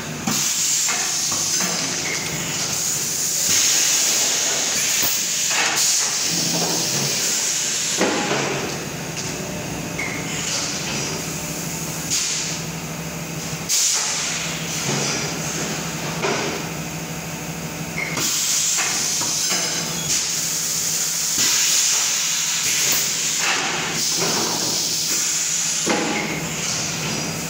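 Semi-automatic four-cavity PET bottle blow-moulding machine running: long spells of compressed-air hiss that come and go, several sharp knocks of the moulding mechanism, and a steady low hum underneath.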